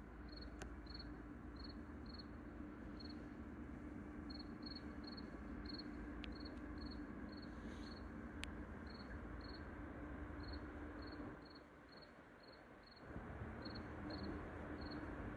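Crickets chirping, short high chirps coming one to two a second at uneven spacing, over a faint low steady hum.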